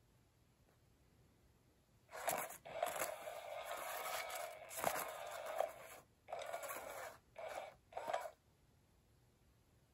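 SmartyKat concealed-motion cat toy running in spurts: its small motor whirs as the wand sweeps under the nylon cover, scraping and rustling the fabric. One run of about four seconds starts about two seconds in, then three short bursts follow before it stops.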